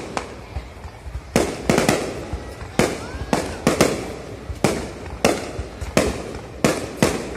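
Aerial firework shells bursting overhead in a rapid series of loud bangs, about two a second, each followed by a rolling echo.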